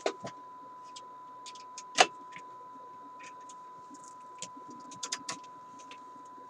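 Steady 1,000 Hz test tone from a signal generator, received and played through a 1968 Ford Mustang Philco AM/FM car radio. Sharp clicks and knocks from test leads and a meter being handled sound over it: a pair at the start, the loudest about two seconds in, and a quick cluster around five seconds.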